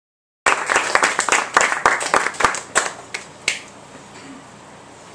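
Applause from a small audience cuts in about half a second in, thins to scattered claps and dies away by about three and a half seconds, leaving quiet room tone.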